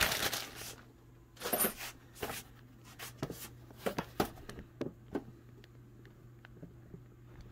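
A Ruger Mini-14 rifle with a bipod being handled and set on a workbench: rustling and a run of light knocks and metallic clicks that thin out after about five seconds, over a steady low hum.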